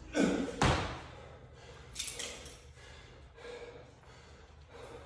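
Two heavy thuds close together within the first second, from the pull-up bar rig and an athlete dropping down onto a rubber gym floor, followed by quieter shuffling and handling noises.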